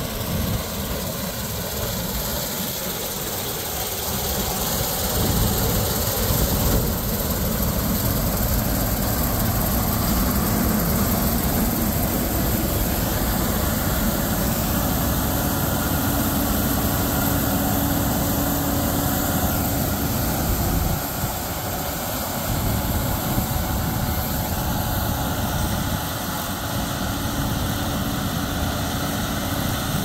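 Gleaner S96 combine running steadily under load while harvesting soybeans: its six-cylinder 8.4-litre twin-turbo diesel together with the threshing and cleaning machinery.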